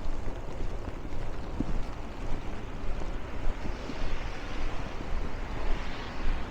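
Snowstorm wind buffeting the microphone in a constant low rumble, over a rushing hiss that swells about four seconds in and fades near the end.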